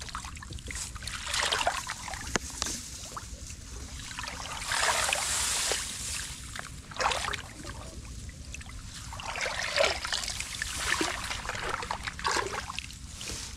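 Shallow paddy water splashing and sloshing in repeated bursts as a woven bamboo basket is swished and scooped through it by hand.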